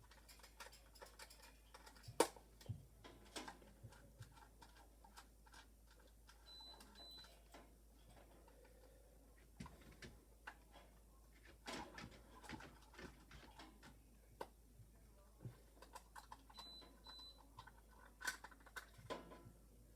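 Faint, scattered clicks and taps of hands handling small parts at a workbench, with two pairs of short high beeps, about 7 and 17 seconds in.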